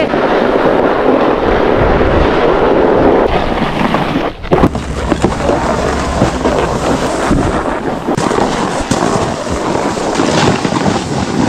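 Wind rushing over the microphone of a moving snowboarder, mixed with the hiss and scrape of snowboards sliding over groomed snow. There is a short break with a few sharp clicks about four seconds in.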